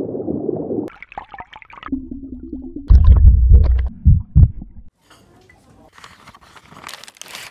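Muffled underwater sound picked up through a diving camera's housing: gurgling and bubbling, with several heavy low thuds about three to four and a half seconds in, then a rising hiss near the end.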